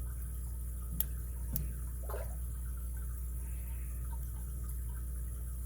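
Faint clicks of a lock pick and tension wrench working inside a 38 mm all-brass Eagle padlock: two sharp ticks about a second in and half a second later, over a steady low hum.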